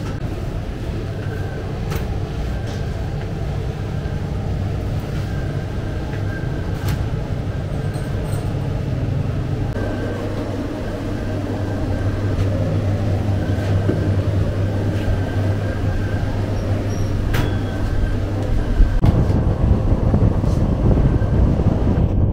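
Steady low mechanical hum of bakery machinery, with scattered light clicks and knocks.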